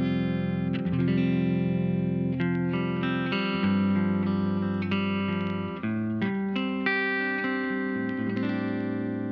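Electric guitar played through a compressor effect pedal: single notes and chords picked about once a second, each ringing on with long sustain, with a quick run of several picked notes about six seconds in.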